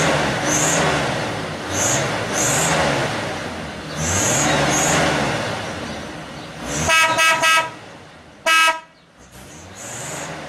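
Early-1950s Pontiac with its engine revved up and down several times, then its horn honked three times in quick succession and once more about a second later.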